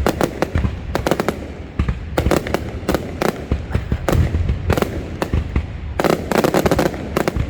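Fireworks display: a rapid, uneven series of sharp bangs and crackles, several a second, over a continuous low rumble.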